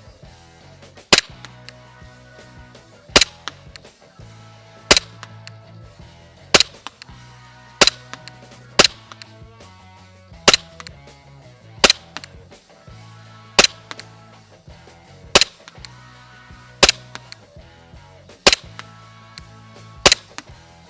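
Umarex Glock 17 Gen 4 gas blowback airsoft pistol, running on green gas, firing single shots: about thirteen sharp cracks, one every second or two. Quiet background music plays underneath.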